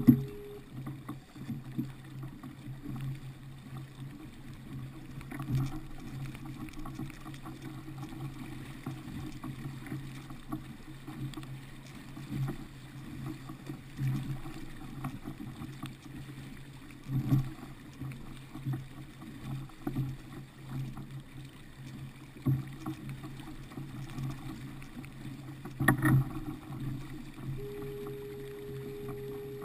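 Water sloshing and splashing against the hull of a pedal-drive kayak moving through choppy sea, with a steady low rumble and occasional knocks, the loudest a few seconds before the end.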